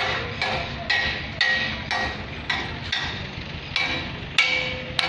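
Hammer blows on steel, about two a second, each ringing briefly with a metallic tone, over a faint steady hum.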